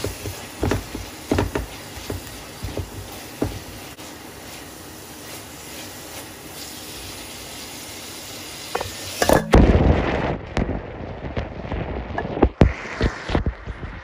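Onion masala frying in a pan with a steady sizzle, and a spatula knocking and scraping against the pan a few times in the first few seconds. About nine and a half seconds in, the sizzle gives way to a loud rustle and then a series of knocks.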